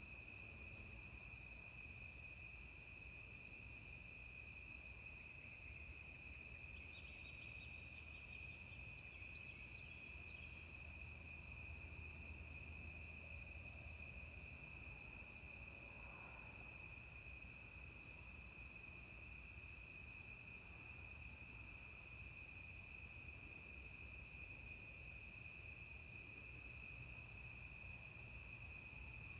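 Steady summer night chorus of crickets and other insects: several high-pitched trills at different pitches run together without a break.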